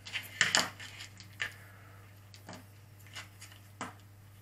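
Light clicks and taps of quadcopter wiring, motors and plastic connectors being picked up and shifted on a plastic cutting mat: a small cluster of clicks about half a second in, then a few scattered single ticks.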